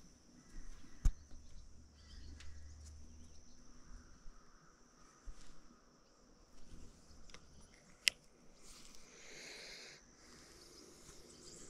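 Insects chirring steadily, a faint high, even buzz, with two sharp clicks, one about a second in and one about eight seconds in.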